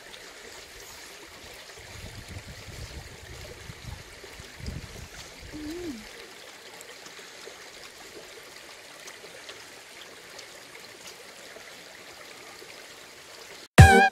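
Steady sound of a flowing stream, running water over rocks. Near the end, loud guitar music starts abruptly.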